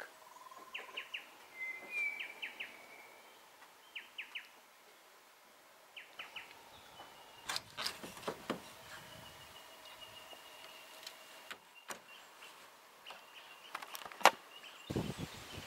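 Small birds chirping in short runs of three or four quick notes. Then come a few sharp clicks and knocks from a glass louvre window being worked by hand, with the loudest single click near the end.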